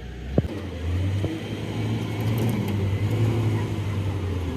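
A sharp click, then a steady low engine drone.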